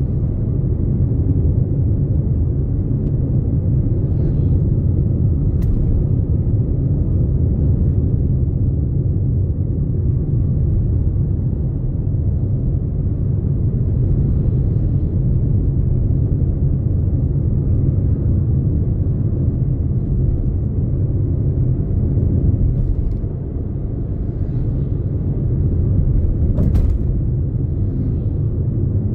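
Steady low rumble of road and engine noise inside a moving car's cabin. Two brief sharp clicks sound over it, about six seconds in and again near the end.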